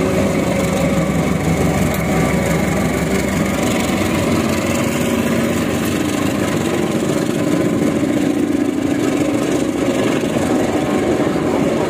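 Diesel-electric locomotive engine running steadily as the train pulls past at low speed, the engine note rising slightly in the middle.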